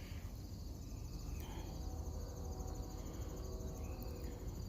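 Faint, steady insect chirring over a low background rumble.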